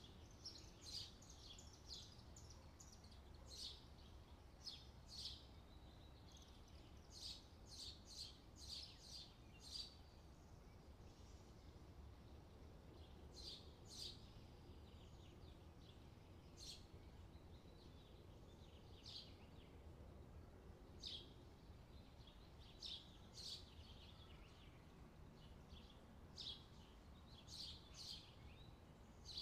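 Faint bird chirps, short and irregular, over a low steady hum.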